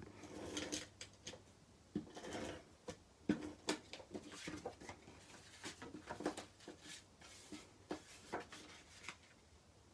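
Card stock and paper pieces being handled and laid on a work table: soft rustles and a scatter of light taps and clicks.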